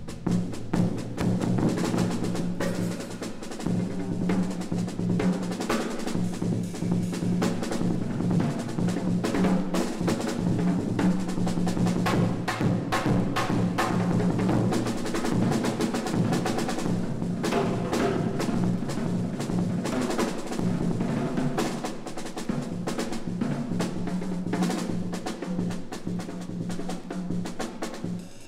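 Jazz drum kit played in fast, continuous rolls across the snare and drums, a dense unbroken flurry of strokes.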